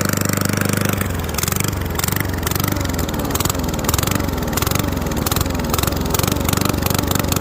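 Straight-piped single-cylinder lawn mower engine, with its muffler deleted, running hard. After about a second its speed starts surging up and down, about twice a second.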